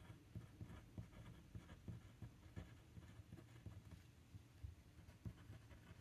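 Near silence with faint, irregular scratching of a pen writing on paper.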